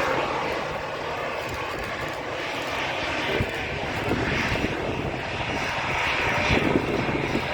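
Airliner engines running, a steady rushing noise that grows slightly louder near the end.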